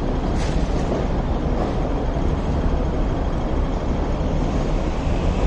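Steady city street traffic noise: road vehicles and trams running past with a continuous low rumble.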